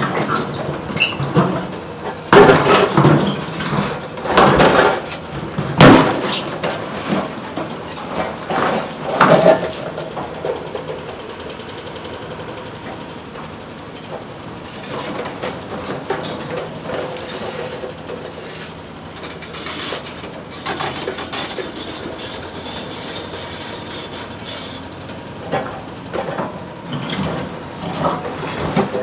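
Excavator working on railway track demolition, handling old steel rails. There is a run of loud metal clanks and scrapes over the first ten seconds or so, then quieter machine noise with occasional knocks.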